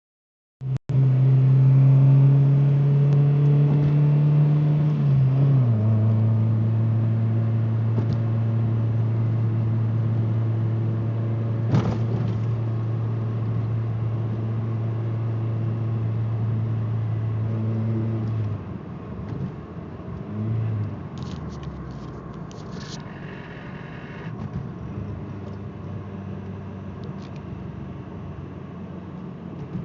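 Ford Escort ZX2's four-cylinder engine running as the car drives, a steady hum that steps down in pitch about five seconds in, then drops to a quieter, lower rumble after about eighteen seconds. The car has a bad misfire and a loose timing belt tensioner pulley that makes it vibrate below 2,000 rpm.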